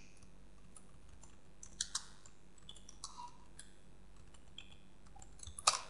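Faint typing on a computer keyboard: scattered single keystrokes, with a quick cluster of louder keystrokes near the end.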